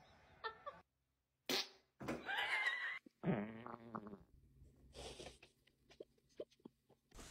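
A person farting, several separate blasts of varying length in the first half, the longest and loudest a little over two seconds in, followed by a few faint clicks.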